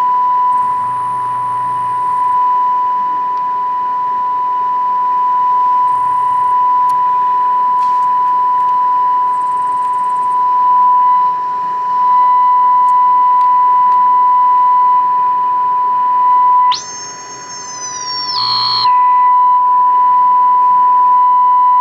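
A steady, piercing test tone from the speaker of a General Electric AM table radio, which is being fed a 455 kHz signal from a signal generator during IF alignment. The tone's loudness drifts up and down slightly as the IF transformers are tuned. About 17 seconds in, the tone drops back and a higher-pitched squeal takes over for about two seconds, then the steady tone returns.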